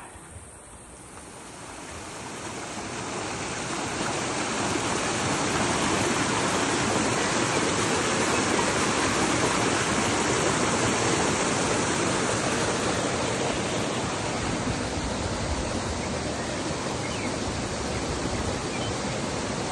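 Mountain stream rushing over rocks: a steady wash of water noise that swells over the first few seconds, then holds.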